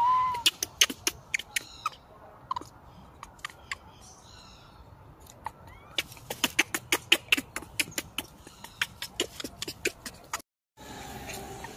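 Infant macaque gives one short, high squeal at the start, then a run of sharp clicks and smacks, thickest about six to eight seconds in, as it nurses and shifts against its mother; faint chirps come in between. The sound cuts out briefly near the end and comes back as a steadier hum.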